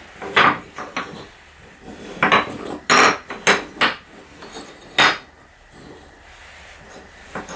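Small wooden wedges and offcuts being set down and knocked against a wooden workbench top: a string of sharp wooden clacks at uneven intervals, bunched around the middle, the last about five seconds in.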